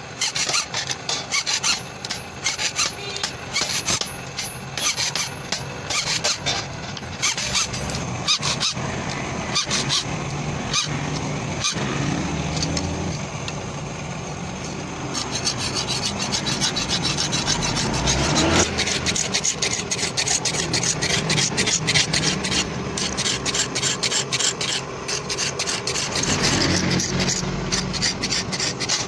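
A hand file rasping over a steel sickle blade in quick repeated strokes as the blade is shaped and sharpened. The strokes become denser about halfway through.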